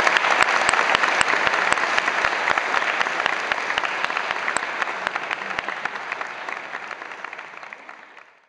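Audience applauding, dense clapping that thins and dies away over the last few seconds, then cuts off abruptly at the very end.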